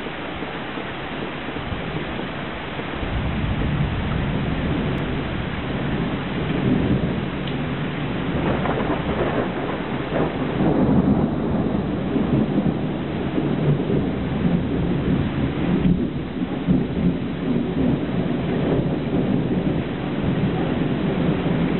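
Heavy rain pouring steadily, with long rolling thunder rumbling underneath. The thunder builds from about three seconds in and is loudest around the middle.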